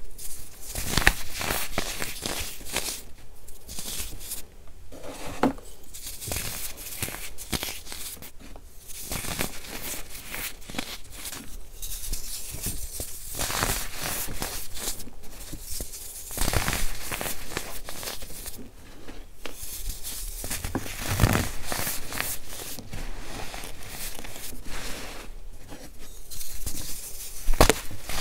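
Hands crushing and crumbling dried baking-soda blocks moulded as soap bars, with continuous crunching and crackling and powder falling onto a heap of loose baking soda. Sharper cracks come now and then.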